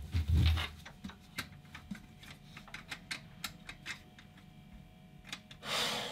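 An uneven run of sharp clicks, about three or four a second, as fuse-box switches are flicked in the dark in a failed attempt to restore power after the fuses have blown. A couple of low thumps open the run, and a short rush of noise comes near the end.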